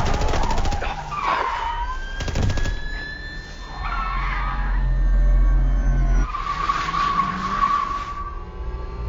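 Car-chase sound effects: a burst of rapid automatic gunfire, tyres squealing, a second short burst of gunfire about two seconds in, then engines rumbling and a long tyre squeal of a speeding car near the end.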